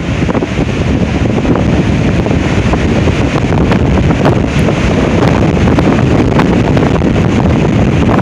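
Strong, gusty windstorm wind blasting across the microphone in a loud, continuous low rumble, with scattered small clicks.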